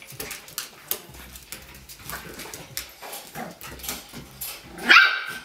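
Italian Greyhound and a small puppy play-fighting on a hardwood floor: claws clicking and scrabbling on the boards, then one loud, high-pitched bark near the end.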